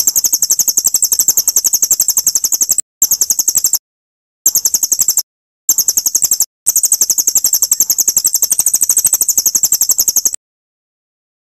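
Songbird's long, very high-pitched rapid trill of about ten notes a second, broken into several bouts by short pauses, then cutting off. This is the kind of long trill that murai batu keepers call a cililin, played as training song.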